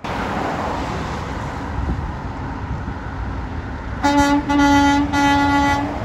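Garbage truck horn sounding three times in quick succession about four seconds in, the last blast the longest, over steady truck engine and traffic noise.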